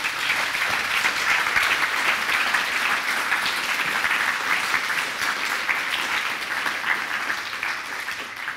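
Audience applauding, steady clapping that tails off near the end.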